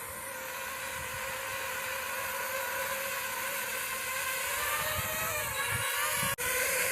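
DJI FPV drone's propellers whining steadily in flight, a pitched hum of several tones that grows slowly louder as the drone comes back under return-to-home to land on its pad. The sound cuts out for a split second near the end.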